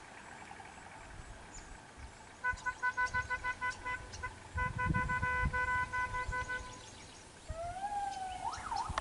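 Vehicle horn honked in a quick series of short toots, about six a second, then in longer blasts. Near the end comes a sliding call that rises and wavers in pitch.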